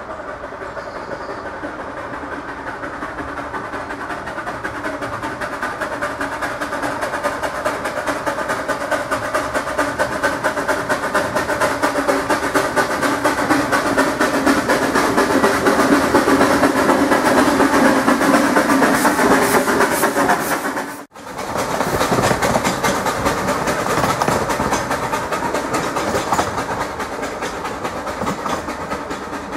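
15-inch gauge steam locomotive Spirit of Adventure approaching and passing, its chuffing exhaust and wheels on the rails growing steadily louder to a peak. The sound cuts out abruptly for an instant about two-thirds through, then carries on a little quieter.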